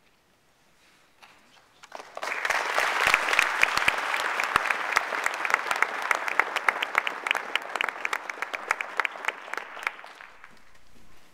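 Audience applauding, with many sharp individual claps close by. The clapping starts about two seconds in and dies away near the end.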